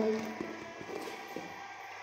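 A few faint clicks and taps as a small wallet is handled.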